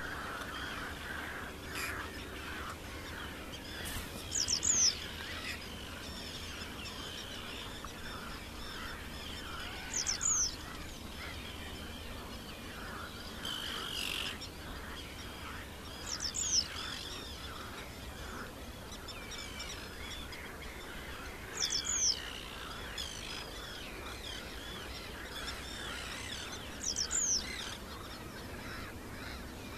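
Wild birds calling and singing, with a loud, high call of two or three quick notes repeated about every five to six seconds over a continuous background of fainter chirping.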